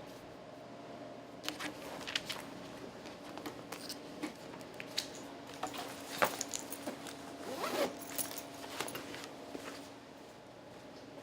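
Irregular rustling and clicking handling noises, including short zipper-like runs of clicks, spread over several seconds. The loudest click comes about the middle, and it goes quiet near the end.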